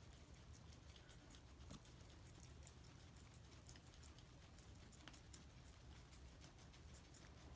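Faint crunching of guinea pigs chewing chopped vegetables, a scatter of quick irregular ticks over a low steady hum.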